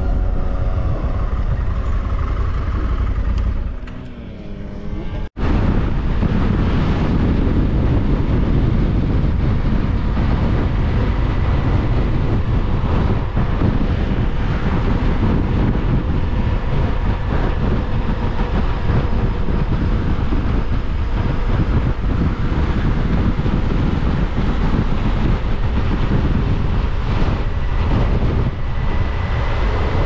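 Music fades out over the first few seconds. From about five seconds in, a Honda CRF1100L Africa Twin's parallel-twin engine runs steadily under way, mixed with heavy wind noise on the microphone and road rumble.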